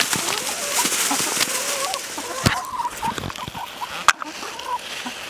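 A small flock of brown hens clucking softly in a run, many short low calls overlapping, with two sharp clicks, one about halfway through and one near the end.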